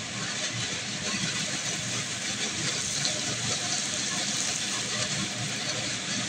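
Hot oil sizzling steadily in a wok as a disc of date dough deep-fries.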